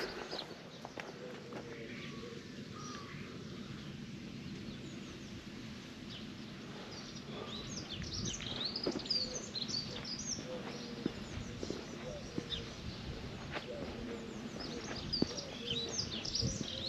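Wild birds singing: many short chirps and trills, busiest about halfway through and again near the end, over a steady outdoor background and the faint steps of someone walking.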